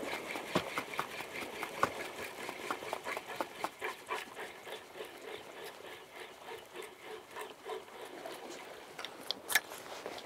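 Spinning reel being cranked and the rod worked during a jig retrieve: a fast, irregular run of small mechanical ticks and whirring that eases off a little, with one sharper click near the end.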